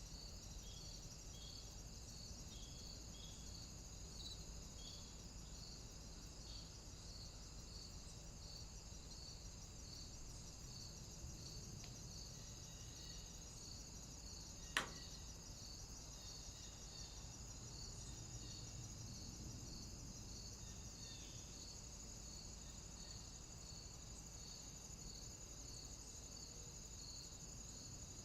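Crickets chirping in an even, repeating rhythm over a steady high insect drone, faint throughout. About halfway through there is a single sharp click, the loudest moment.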